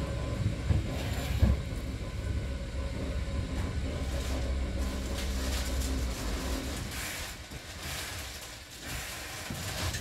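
Hankyu 6000 series electric train, heard from inside the front car, rolling slowly into the terminal platform and slowing to a stop: a steady low rumble of wheels and running gear with a faint hum and a few knocks, dying away about seven seconds in.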